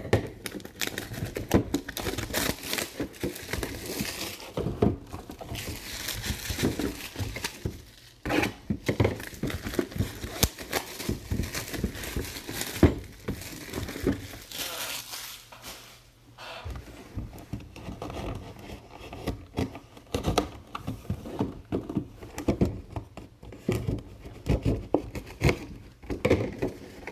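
Packaging torn open and crinkled by hand, with irregular rustling and short handling knocks throughout.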